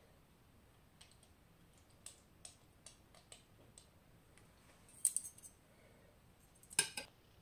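Faint clicks and squirts from a plastic squeeze bottle of dressing being pressed over the salad, a louder clatter about five seconds in, then a metal fork clinking against a ceramic plate near the end, with a short ring.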